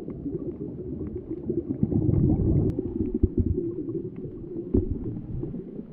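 Muffled underwater ambience picked up by a camera in an underwater housing: a steady low rumble of water movement with scattered faint clicks.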